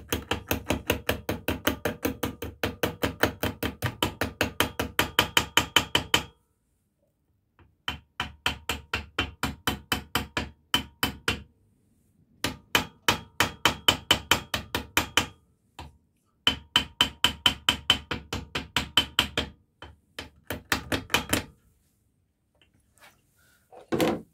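Rapid light hammer taps on steel, about five or six a second, in four runs with short pauses between them, driving the small square key home into the keyway at the end of a Triumph T140 crankshaft for the alternator rotor. One single heavier knock comes near the end.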